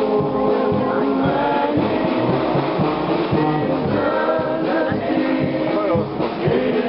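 Wind band playing a slow piece of held, sustained chords over a steady low beat.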